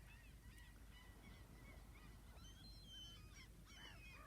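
Faint calls of a distant flock of birds, many short calls overlapping and growing busier after about two seconds.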